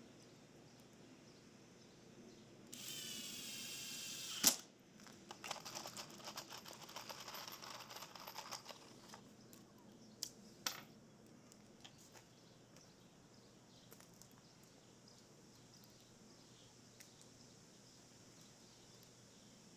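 A small power drill runs for about two seconds and stops with a sharp click. A few seconds of clattering and clicking follow as hardware and tools are handled, then two sharp clicks, then low room tone.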